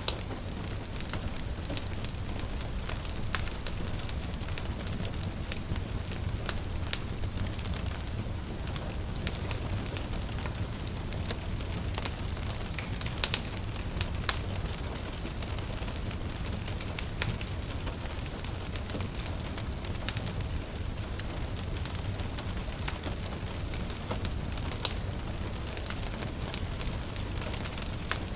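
Wood fire crackling, with scattered sharp pops, a few of them louder, over a steady low rumble and the even hiss of gentle rain.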